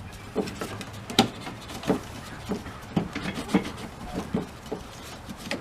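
Irregular light clicks and knocks, about two or three a second, of hand work on a pickup's plastic cowl trim and its fastening screw.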